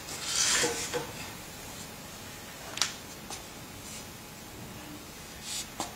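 Clear plastic water-cooling hoses and cables being handled and dragged on a tiled floor: a brief scraping rustle in the first second, then a sharp click about three seconds in and a softer one after it, and another short rustle near the end.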